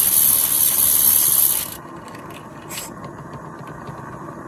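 Gas burner of a Regner live-steam tram loco hissing loudly as the loco runs in reverse. The burner's collar still lacks its secondary air hole, and the owner finds the burner noisier and more ragged than on his other Regners. Under two seconds in the hiss drops away sharply, leaving fainter, fast ticking from the running loco.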